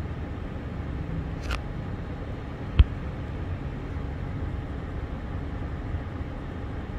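Steady low outdoor background rumble with no distinct source. A faint click comes about a second and a half in, and a short sharp knock just before three seconds is the loudest sound.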